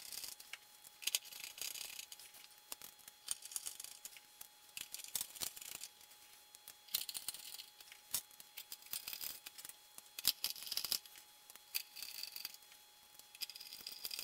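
Small screws being driven into a metal instrument chassis with a hand screwdriver: irregular scratchy clicks, small metal taps and rattles as the screws are handled and turned.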